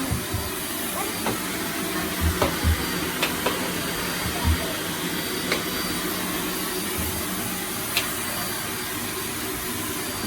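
Dyson Light Ball Multifloor upright vacuum cleaner running with a steady motor whoosh, with a few low knocks and sharp clicks scattered through it.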